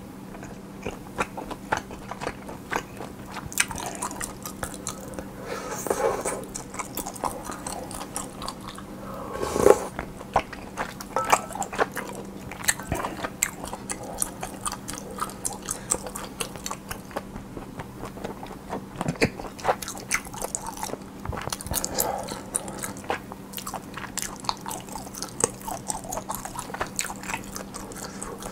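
Close-miked eating sounds: irregular crisp crunching and wet chewing, with one louder hit about ten seconds in, over a faint steady hum.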